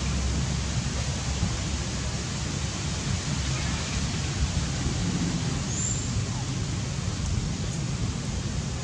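Steady outdoor background noise with a low rumble and no distinct event.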